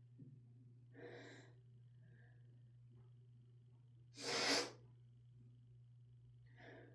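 A person sneezing once, hard, about four seconds in, with softer breathy sounds about a second in and near the end. The sneeze is set off by chhinkni, a sneezing snuff, on top of a head cold and a dog allergy.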